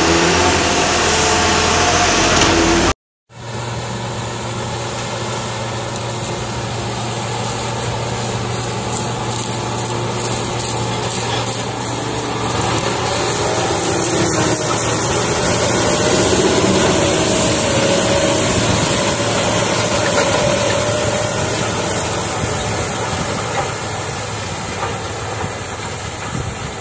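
Large tractor diesel engine running steadily under load, a continuous low drone with a steady hum. The sound cuts out about three seconds in, then resumes as an engine drone from a tracked tractor working a field, a 620 hp 12.9 L six-cylinder two-stage turbocharged diesel.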